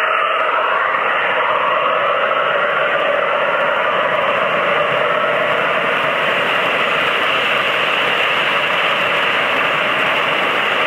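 Steady rolling rumble of a long string of O-gauge model tank cars passing close by on three-rail track, metal wheels running on metal rails.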